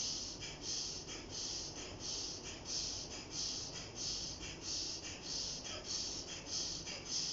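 Kapalabhati breathing: a rapid series of sharp, forceful exhalations through the nose, pumped from the abdomen, a hissing puff a little under twice a second with passive inhalations between.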